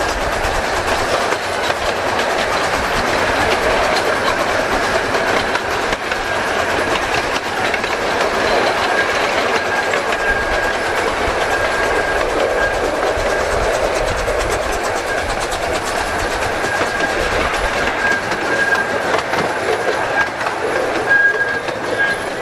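A 15-inch gauge live steam miniature train running along, with a steady rumble and clickety-clack from the wheels on the track. A thin high tone comes and goes over the second half.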